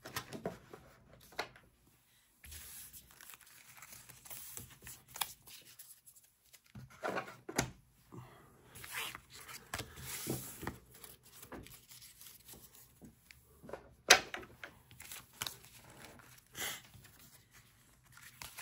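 Stacks of trading cards being handled and put away: irregular rustling and crinkling, with one sharp knock about 14 seconds in.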